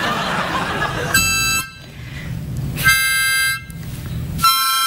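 Harmonica blown in three short held chords, about a second in, about three seconds in and near the end, with audience noise before and between them.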